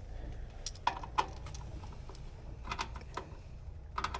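A few light metallic clicks and taps from hands fitting a refrigerant gauge or probe onto a service port, over a low steady hum.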